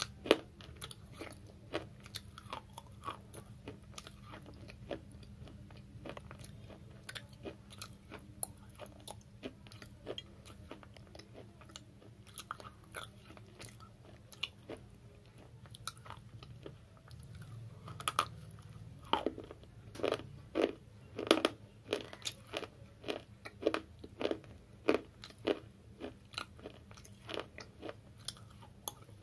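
Dry slate chips being bitten and chewed, with crisp, gritty crunches. The crunching is fainter for the first half, then gets louder and more regular, about two crunches a second.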